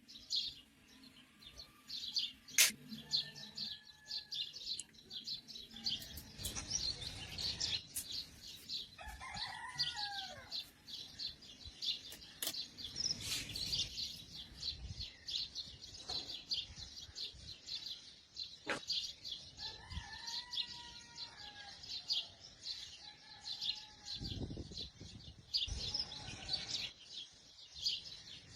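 Small birds chirping constantly, with a rooster crowing several times and a few sharp clicks.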